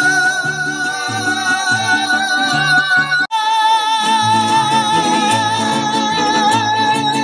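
Live mariachi band playing: long notes held with vibrato over strummed guitars and a stepping bass line. The music breaks off for an instant about three seconds in.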